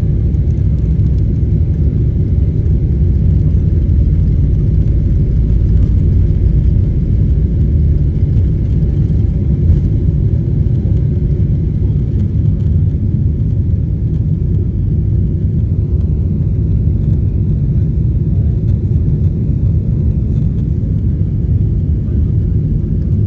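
Cabin noise of a Boeing 777-300ER taking off: its GE90-115B engines at takeoff thrust, heard through the fuselage as a loud, steady low rumble as the airliner leaves the runway and climbs away.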